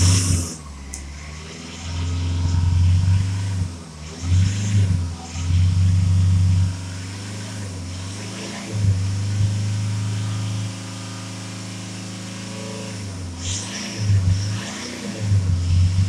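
Mitsubishi Triton's 2.5-litre four-cylinder turbo-diesel engine being revved with the truck stationary. There are several short throttle blips, then a few seconds held at around 3,000 rpm before easing back, then more blips near the end.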